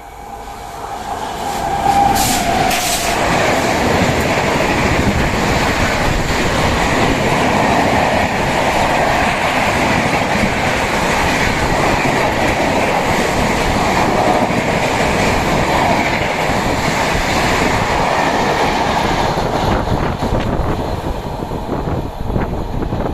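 WAP-7 electric locomotive hauling the Saraighat Express through a station at about 135 km/h. Its horn sounds and dips in pitch as it passes. The coaches then rush by in a loud, steady roar of wheels on rail, which thins out near the end.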